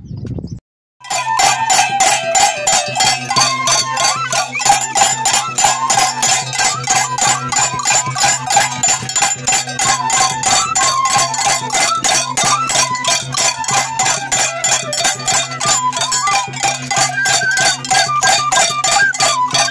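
Andean folk music starting abruptly about a second in. A cane flute plays a wandering melody over a fast, steady percussion beat, with a steady low tone underneath.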